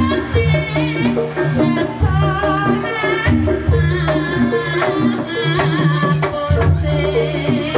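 Live jaranan (kuda kepang) music in the traditional gejok lesung style: a steady rhythm of sharp wooden strikes and drums under a repeating low held note, with a wavering high melody line over it.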